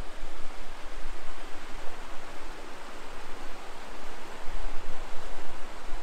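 Steady rushing of a monsoon-fed desert stream flowing over rocks, with wind rumbling unevenly on the microphone.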